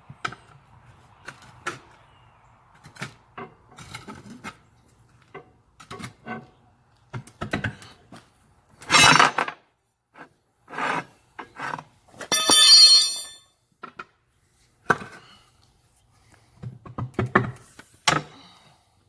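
Steel tire irons knocking, scraping and clanking against a tractor's steel wheel rim as the tire bead is pried off it. Irregular knocks throughout, a loud hit about nine seconds in, and a ringing metal clang about twelve and a half seconds in.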